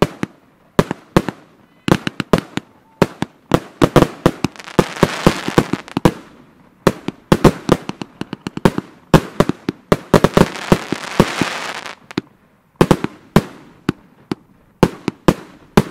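Firework batteries (cakes) firing in a rapid string of sharp bangs, several a second, as shots launch and burst. There are two stretches of dense crackling, about five seconds in and again around ten to twelve seconds in.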